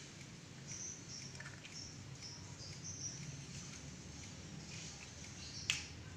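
Faint high chirps of small birds over small crackling clicks of shell being peeled off a hard-boiled egg by hand. One sharp click comes near the end.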